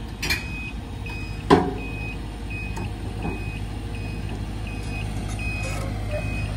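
Backup alarm beeping about twice a second over the steady low rumble of diesel heavy equipment, with one sharp clank about a second and a half in.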